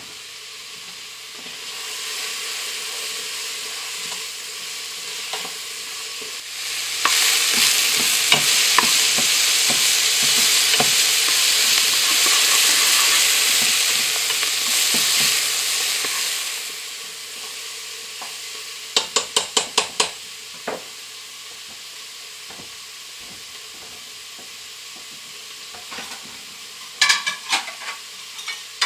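Sliced carrots, celery and onion sautéing in olive oil in a large pot, sizzling steadily as they are stirred with a spoon. The sizzle grows much louder about seven seconds in and drops back after about ten seconds. A quick run of clicks comes about two-thirds of the way through, and plates clink near the end.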